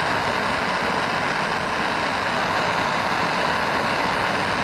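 Steady hissing rush of a gas torch flame heating a battery lug and wire for soldering, with wind blowing across it.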